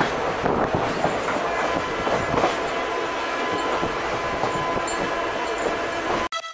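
Running noise of a moving express train heard on board: wheels rolling on the rails with a clickety-clack over the rail joints and a faint steady high tone. It cuts off suddenly near the end.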